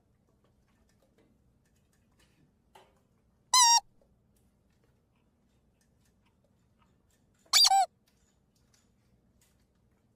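Squeaky-toy squeak sound effect. It sounds twice: a single short squeak a little over a third of the way in, and a quick double squeak about three-quarters in, with near silence between them.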